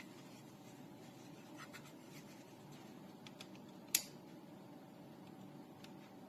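Quiet room tone with a few faint scattered clicks and one sharper click about four seconds in.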